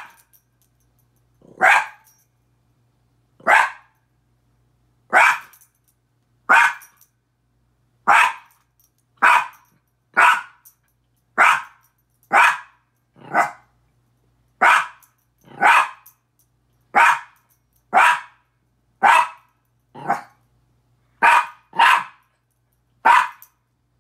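Miniature pinscher barking repeatedly at his own reflection in a mirror. Short single barks come roughly one a second, about twenty in all, with two in quick succession near the end.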